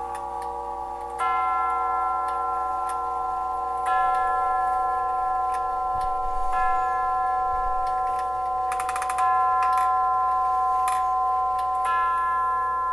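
Howard Miller grandfather clock's tube chimes struck by the movement's hammers, five strikes about two and a half seconds apart, each note ringing on into the next, over the faint tick of the movement. The hammers have fresh soft leather pads, so the tones are sweet and echoing with nothing sharp about them.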